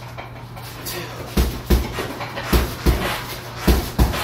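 Boxing gloves punching a hanging heavy bag: sharp thuds in quick pairs, three one-two combinations about a second apart starting a second and a half in.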